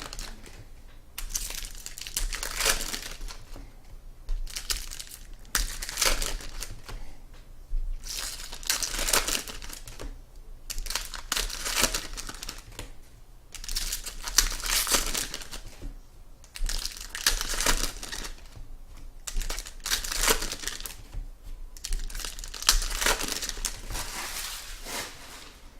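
Trading card pack wrappers being torn open and crinkled by hand, in repeated bursts of crackling every two to three seconds.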